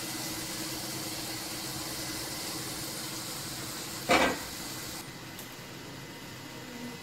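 Soybean kofta balls sizzling steadily in hot oil in a kadhai, with one sharp knock of the serving spoon about four seconds in as the fried balls are lifted out. The sizzling drops away about five seconds in.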